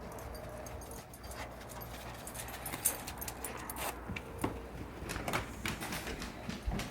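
A dog moving about, making irregular light clicks and rustles.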